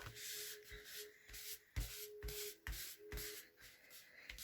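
Hands rubbing and pressing glued paper flat, a series of back-and-forth scuffing strokes with several soft thumps about midway through.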